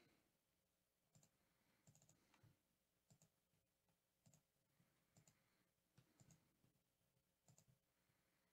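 Faint computer mouse clicks, about one a second, some in quick pairs.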